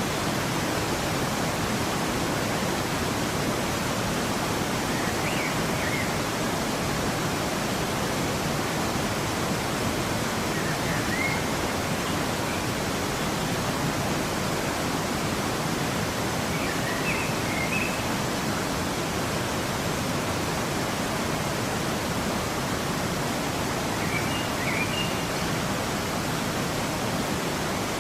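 Waterfall: a steady rushing of falling water, with a few faint short high chirps every several seconds.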